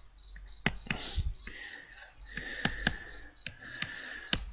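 Irregular sharp clicks and a faint scratchy hiss from a computer mouse being clicked and dragged to handwrite on screen, over a high chirping that repeats evenly about three times a second.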